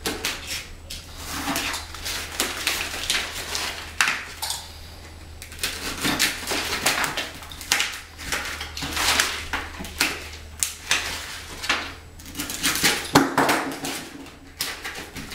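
Utility knife cutting and scraping through an adhesive foam edge strip laid over a floor register, with irregular rustles, scrapes and clicks of hands pressing and handling the strip. A sharp knock stands out near the end.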